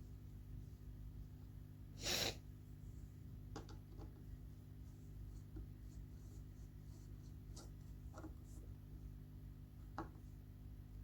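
Hand-handling noises from reassembling a ceiling fan: one short, loud scrape about two seconds in, then a few scattered light clicks of parts, over a low steady hum.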